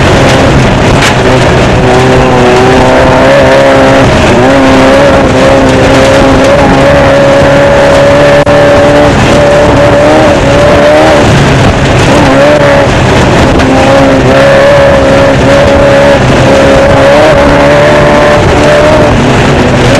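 Off-road desert race car's engine running hard at speed, heard from the dash camera inside the car, its pitch rising and falling with the throttle over a loud, constant rush of noise, dipping briefly about halfway through.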